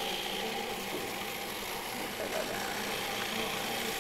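Food processor motor running steadily, blending a thick kale-and-white-bean pesto.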